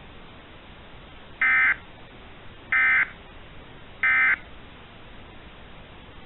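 Emergency Alert System end-of-message code: three short bursts of SAME digital data tones, each about a third of a second long and spaced about a second and a quarter apart, over a steady low hiss. They mark the end of the alert broadcast.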